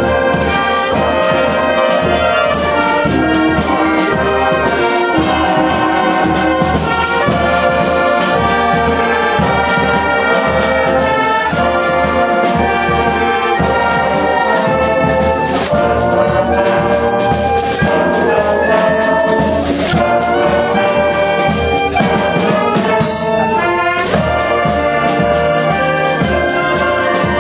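A full wind band playing a piece together: clarinets and cornets carrying the tune over tubas, euphoniums and trombones, with a steady beat.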